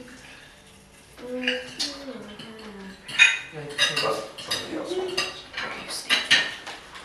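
Cutlery clinking against dinner plates as people eat. The clinks come thick from about three seconds in, with low voices talking at the table.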